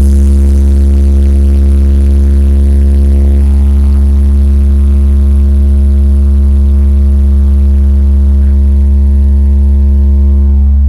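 A carnival sound system's subwoofers playing one steady, very loud low bass tone with a buzzing stack of overtones, fading out at the end: a test tone used while tuning the rig.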